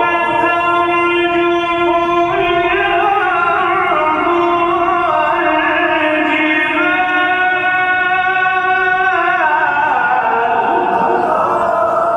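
Quran reciter in the melodic tilawa style, drawing out one long ornamented phrase: held notes that step slowly up and down in pitch, ending about nine or ten seconds in.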